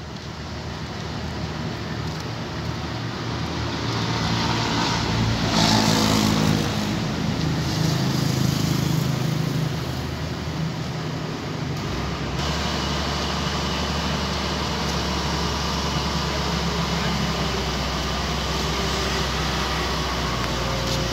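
Heavy diesel machinery engine running. It grows louder with its pitch shifting a few seconds in, then settles into a steady low drone about halfway through.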